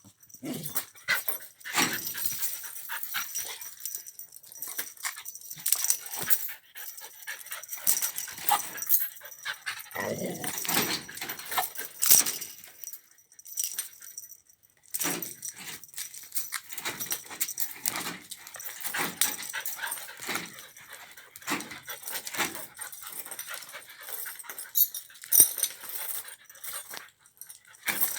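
A dog whining and giving short barks and yips in a dense, irregular run of short sounds, restless and excited.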